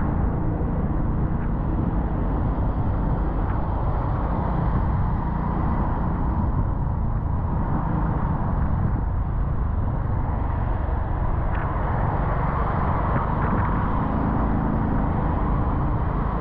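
Car driving along, a steady low rumble of engine and road noise.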